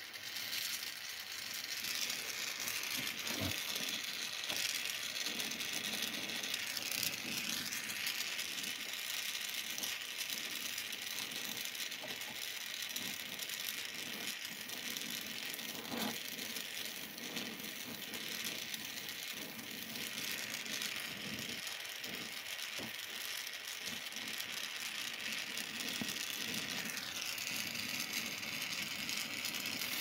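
Gas blowtorch flame hissing steadily as it heats a small steel pin held in a vise, ready for bending. Two light knocks are heard, one a few seconds in and one about halfway through.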